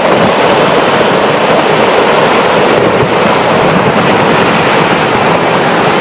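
Large rockfall: a collapsing rock pinnacle and the debris pouring down the mountainside make a loud, steady rushing rumble.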